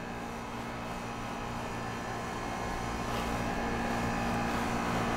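Steady machine hum, slowly growing louder, with no distinct knocks or clicks.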